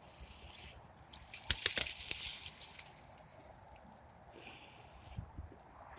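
Dry twigs and brush being gathered and trodden on: three bursts of rustling and crackling, with a few sharp snaps about a second and a half in.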